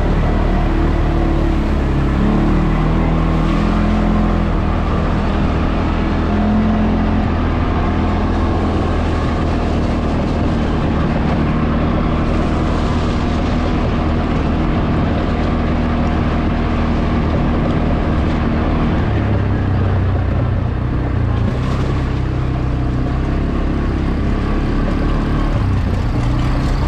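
CFmoto CForce 520 ATV's single-cylinder engine running while riding, its engine note shifting in pitch a few times, under a steady rushing noise.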